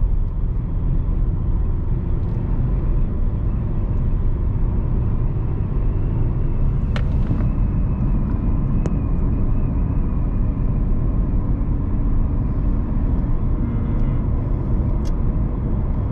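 Car driving along a road: a steady low rumble of engine and tyres, with a few faint clicks.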